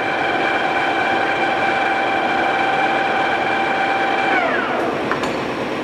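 Toolmex TUR-630A engine lathe running with its spindle at 224 RPM: a steady whine from the headstock gearing with the chuck turning. About four seconds in, the whine drops in pitch and fades as the spindle is stopped, followed by a light click.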